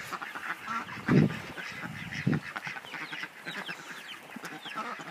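A flock of young chickens and turkeys peeping, many short falling calls overlapping. Two dull thumps come about one and two seconds in.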